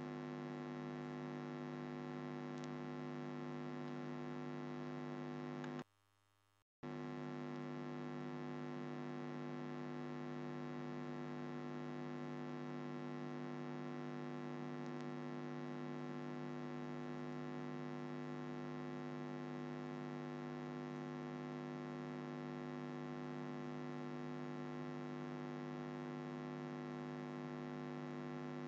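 Steady electrical mains hum with many evenly spaced overtones, strongest in the low range. It drops out briefly about six seconds in, then resumes unchanged.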